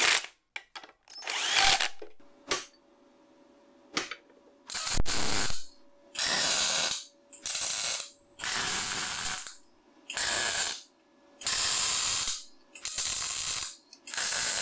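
A cordless drill runs briefly twice. Then a welder lays a series of short welds on steel, about eight bursts of roughly a second each with short pauses between them.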